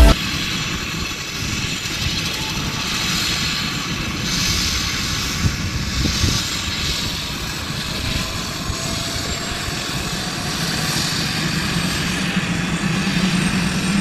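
Air ambulance helicopter running on the ground, a steady continuous engine and rotor noise.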